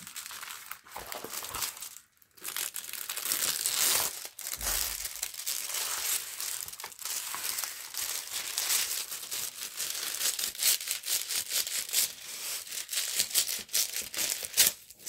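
Thin clear plastic protective film crinkling and crackling as hands smooth it down over a diamond painting canvas, with a short pause about two seconds in.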